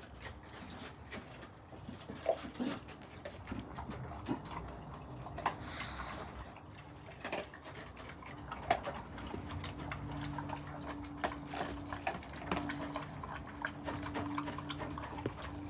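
A dog moving about, with irregular small clicks and taps throughout; a low steady hum comes in at about the ten-second mark and fades near the end.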